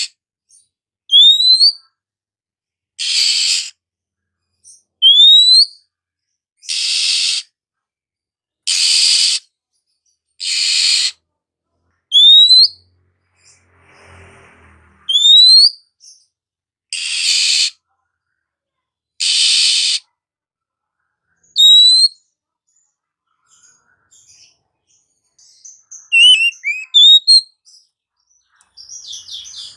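Oriental magpie-robin (kacer) calling: harsh rasping calls about a second long alternate with short, sharply rising whistles, every second or two. Near the end it breaks into a quick run of varied twittering notes.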